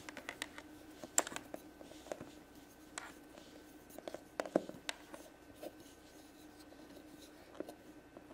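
Plastic toy roller rolling out Play-Doh on a tabletop: faint rubbing with scattered light taps and clicks of the roller and fingers on the table.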